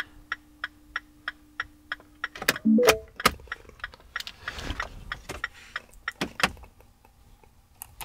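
A car's hazard-light flasher ticks steadily, about three clicks a second, and stops about two and a half seconds in. A few sharper clicks and knocks follow, with a short tone, as the ignition key is handled.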